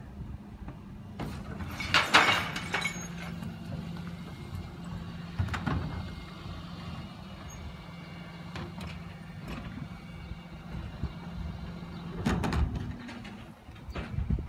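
Refuse collection lorry's engine running with a steady low hum while it collects bins, with a sudden loud noise from the truck's rear about two seconds in and another near the end.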